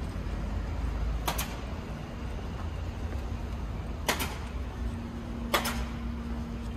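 City street ambience: a steady low traffic rumble, with three sharp clicks or knocks, about one, four and five and a half seconds in, and a faint steady hum from about five seconds on.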